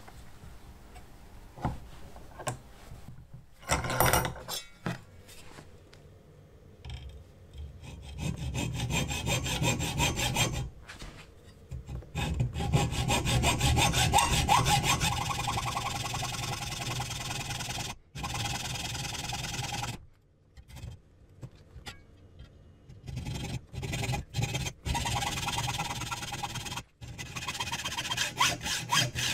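A hand hacksaw cuts through a steel shaft held in a bench vise, in steady back-and-forth strokes, removing a section from a model engine's built-up crankshaft. The sawing follows a few knocks as the work is set in the vise, begins about eight seconds in, and stops briefly a few times.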